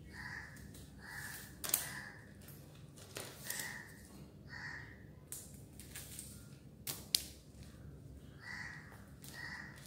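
Plastic basket-weaving wire being handled and pulled through the weave: faint rustling, a couple of sharp clicks and a series of short high squeaks.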